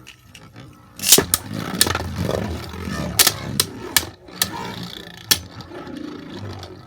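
A series of sharp clicks and knocks at uneven intervals over a low rumbling noise, starting about a second in and easing off near the end.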